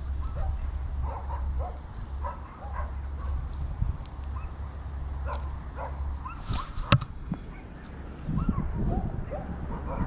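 Many short animal calls scattered through the stretch, over a low steady rumble that stops about seven seconds in. A single sharp click comes at that point.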